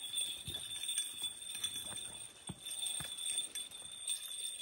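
An Orthodox censer swinging, its chains and small bells clinking in light, irregular knocks, over a faint steady high-pitched tone.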